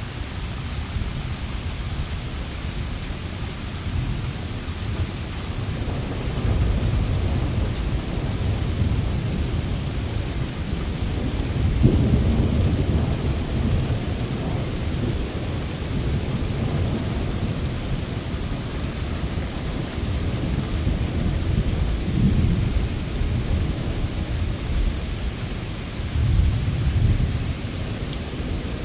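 Steady rain with thunder rolling and rumbling several times, loudest about twelve seconds in.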